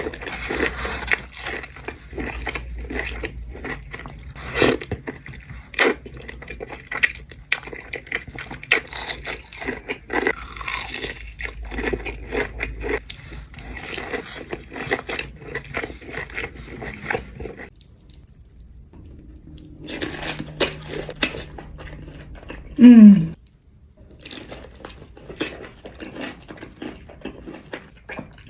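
Close-miked eating: crunching and chewing, with many small crackles and clicks. Near 23 s there is a brief, loud sound that drops steeply in pitch.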